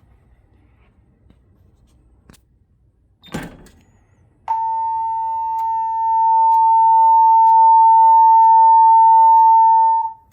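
A click about three seconds in, then a voice-evacuation fire alarm speaker sounds one steady, high alert tone for about six seconds, getting louder partway through.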